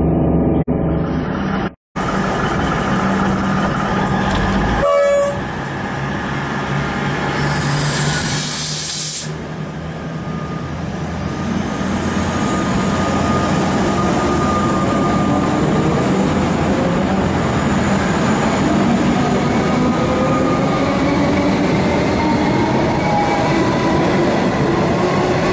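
Melbourne suburban electric train pulling out of a station platform. A hiss of air comes about eight seconds in, then the traction motors whine, rising in pitch as the train gathers speed, with its wheels clattering on the rails. The first two seconds are a muffled rumble from a different recording.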